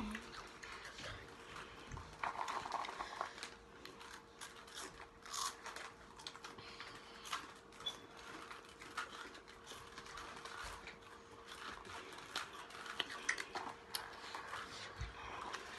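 A person's breathy exhales and mouth noises, with scattered light clicks and rustles, over a steady low hum: the sounds of a mouth burning from a very spicy chip.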